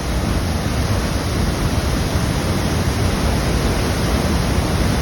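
The River Nile rushing through the narrow gorge at the top of Murchison Falls: a loud, steady roar of water.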